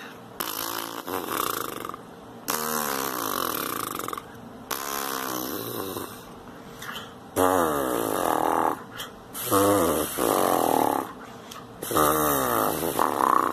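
A tuba player's lips buzzing into a mouthpiece in a warm-up exercise: about six separate buzzes, each sliding down from a high, tight pitch to a low, loose one.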